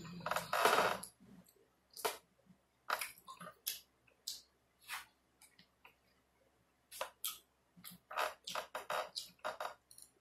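A person chewing and smacking their lips while eating, close to the microphone: irregular wet clicks and smacks. The loudest comes just under a second in, and there is a quick run of them near the end.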